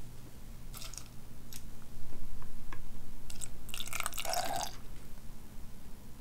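Liquid pouring and dripping into a blender cup over tofu cubes: a few single drips in the first three seconds, then a longer splashing pour in the middle, over a low steady hum.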